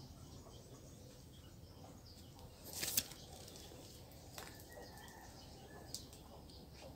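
Quiet outdoor ambience with one brief rustling swish about three seconds in, then a couple of faint light clicks.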